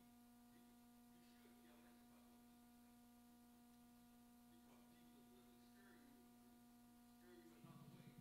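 Near silence: a steady electrical hum, with faint voices at a distance and a low voice starting near the end.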